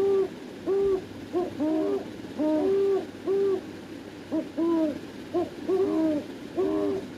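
Owl hooting: a series of short hoots, each rising and falling slightly in pitch, repeated every half second or so in loose groups of two or three.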